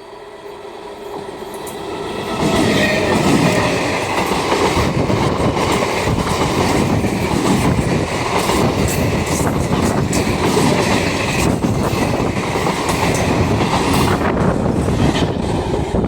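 A train approaching and passing close by: the rumble builds over the first two or three seconds, then the wheels clatter steadily over the rail joints.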